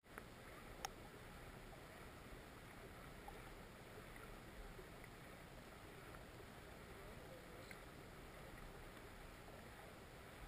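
Faint, muffled rush of river current heard from an underwater camera in its waterproof housing, with a few faint clicks, the sharpest about a second in.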